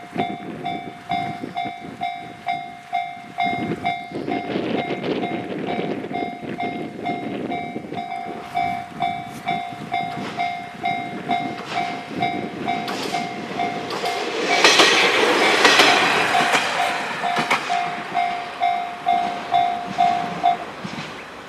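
JNR Class D51 steam locomotive working hard up a steep grade through a level crossing, over the crossing's warning alarm, which sounds about twice a second. A loud rush of steam and exhaust comes about fifteen seconds in as the engine passes closest. The alarm stops near the end.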